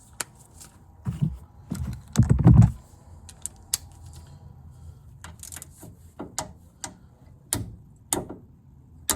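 Scattered metallic clicks and knocks of a torque wrench being set and handled on the drive shaft bolt, with a heavier thump a little over two seconds in.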